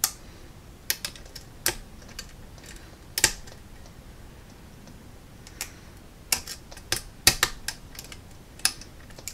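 Steel lock pick clicking and tapping against the pins inside an Arrow six-pin rim cylinder, with the tension wrench in the keyway: a scatter of sharp, irregular clicks, one louder near three seconds in and a quicker run of them around six to seven seconds.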